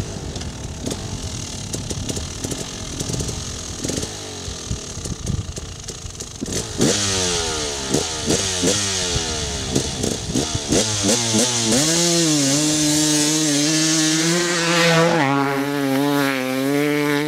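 KTM 300EXC single-cylinder two-stroke engine, running low and uneven with popping for several seconds. Partway through it is blipped in quick rising-and-falling revs about twice a second, then held at high revs in a steady wail for the last several seconds.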